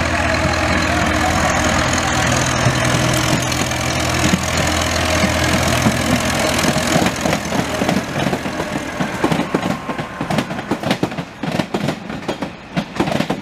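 A C50 narrow-gauge diesel locomotive approaching with its engine running steadily, then passing close by; from about halfway, the wheels of the passing coaches clatter over the track in quick irregular clicks.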